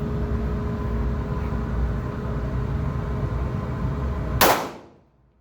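A single 9mm pistol shot about four and a half seconds in, over a steady droning background noise that cuts away to near silence right after the shot.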